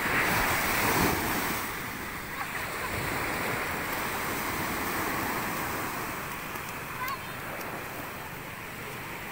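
Ocean surf on a sandy beach: a wave breaks and washes up the sand with a louder surge in the first couple of seconds, then a steady rushing hiss of foam and small waves.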